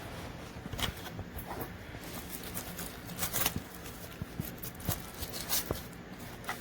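Handling noise from wireless earbuds and their small plastic charging case: scattered light clicks and taps over a soft rustle.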